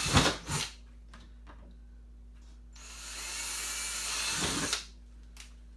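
Ryobi cordless drill with an eighth-inch bit boring a pilot hole through the plastic bottom of a 5-gallon bucket: it runs for about two seconds, rising a little, then stops suddenly. A couple of sharp knocks come at the very start.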